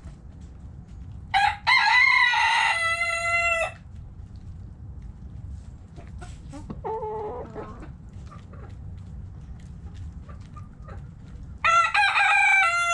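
Rooster crowing twice, each crow about two seconds long, the second starting near the end. Between them comes a shorter, quieter call.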